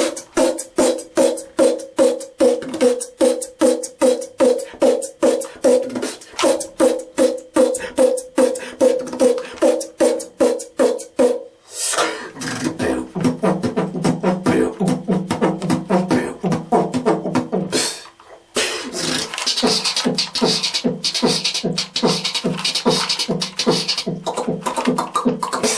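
Fast human beatboxing: sharp drum strokes at about four a second under a hummed pitch. About halfway through it shifts to a lower hummed bass line with busier hissing hi-hat sounds, breaking off briefly before carrying on.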